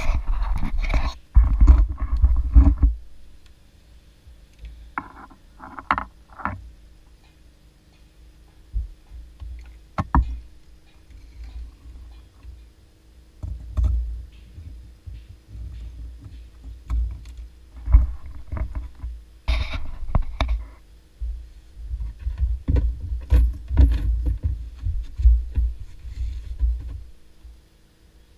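Knocks, scrapes and low bumps of a person shifting about in a small boat and handling gear, coming in scattered bursts with quieter stretches between.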